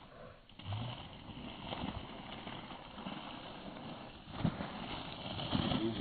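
Small plastic sled scraping and sliding down a wet, muddy grass track, getting louder as it comes closer, with a few knocks in the second half.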